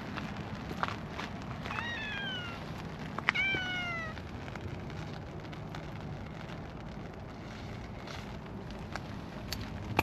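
Calico cat meowing twice, about two seconds in and again a second later, each call falling in pitch.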